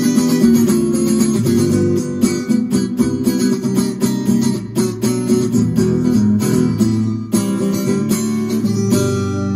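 Electric guitar played through a Valeton GP-200JR multi-effects processor on an acoustic-guitar simulation preset: quick strummed and picked chords, ending near the end on a single chord left to ring.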